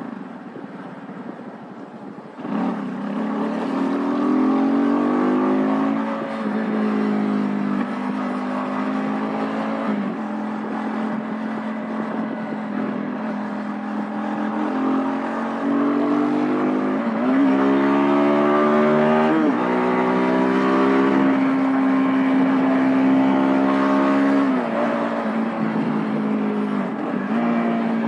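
Vitacci XMT 250 motorcycle engine accelerating through the gears, heard from the rider's seat. The engine is quieter for the first couple of seconds, then the throttle opens. Its note climbs in pitch and drops back at each upshift, several times over.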